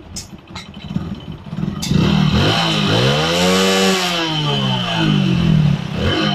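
Hero Honda motorcycle's single-cylinder four-stroke engine running, its exhaust silencer just refitted with a new internal band. About two seconds in the throttle is opened and the revs rise and fall several times.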